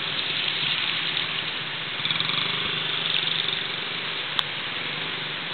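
Honda CRF50 minibike's small four-stroke single-cylinder engine running steadily, a little louder between about two and three and a half seconds in. A single sharp click about four seconds in.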